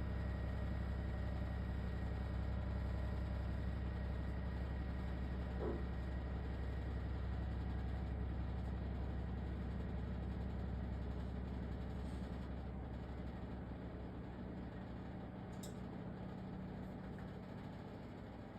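LG ThinQ WSES4728F running with a steady low drone and a rough, rattly layer over it, the horrible rattling noise this machine makes. It eases off gradually over the last few seconds.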